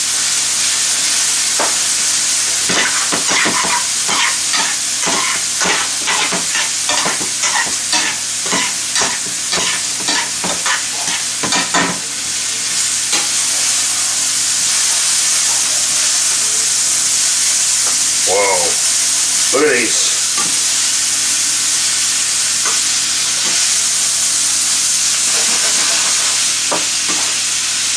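Julienned leeks and carrots and bay scallops frying in oil in sauté pans: a steady sizzle. Through the first twelve seconds or so, metal tongs click against the pan about twice a second as the vegetables are tossed.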